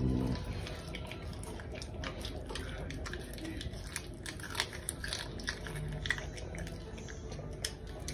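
Caracal chewing and biting raw chicken pieces: a run of short, irregular wet clicks and crunches.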